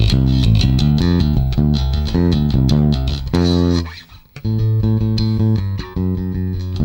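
Music Man StingRay 4 bass guitar played through a Markbass Little Mark Tube 800 amp with the preamp blend turned to all solid state, giving a tone heard as very cold. A run of quick notes stops briefly about four seconds in, then the playing resumes.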